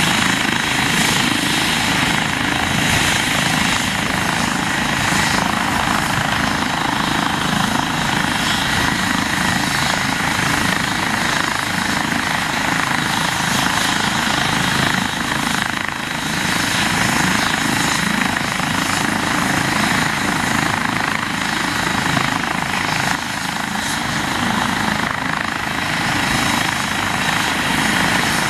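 Eurocopter EC135 P2 helicopter running on the ground with its main rotor turning, a steady turbine whine and rotor noise with a thin high whistle over it. It runs at an even, unchanging level.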